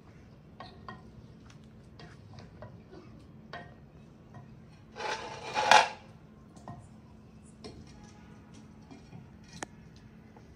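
A wooden ladle knocking and scraping against a clay cooking pot (handi) as potatoes and peas are stirred in the masala, in short scattered clicks and knocks. About halfway through there is a louder, rougher noise lasting about a second, and near the end a sharper clink as the clay lid goes onto the pot.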